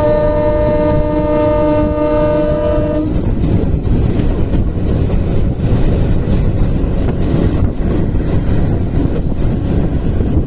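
Train horn sounding a steady multi-tone chord that cuts off about three seconds in, over the loud steady rumble of a moving train.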